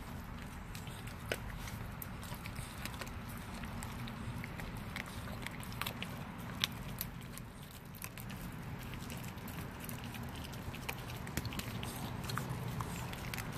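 Bulldogge puppy chewing a frozen raw fish, bones included: irregular wet crunches and sharp clicks of teeth, over a steady low background hum.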